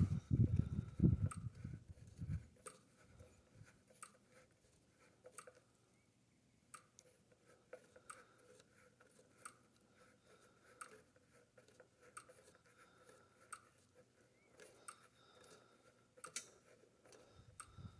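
A low rumble dies away about two seconds in, followed by faint, irregular clicks and ticks.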